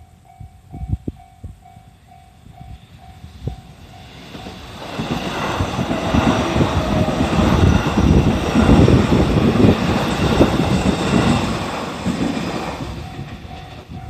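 Level-crossing warning bell ringing about twice a second, then a JR Central 313 series electric train passes over the crossing. Its rolling noise builds from about four seconds in, covers the bell, and fades near the end as the bell is heard again.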